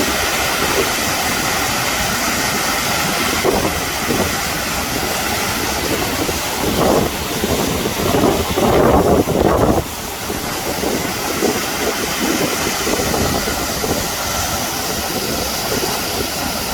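Steady loud rush of a typhoon-swollen river in flood, swelling louder for a couple of seconds about eight seconds in.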